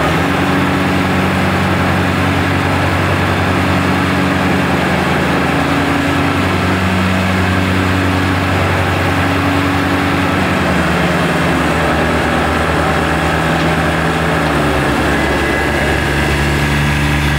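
Kubota BX2200 compact tractor's three-cylinder diesel engine running steadily. Its pitch drops about ten seconds in and shifts again near the end.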